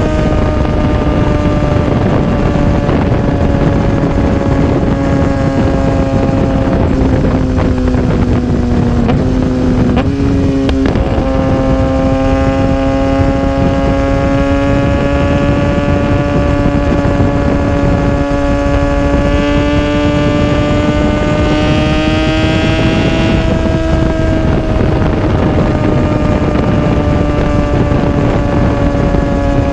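2016 Kawasaki ZX-6R's inline-four running through an M4 Street Slayer exhaust, heard close to the exhaust while riding at a steady engine speed. The engine note sags briefly and shifts about ten seconds in, then climbs a little and eases back near the end, with wind noise on the microphone.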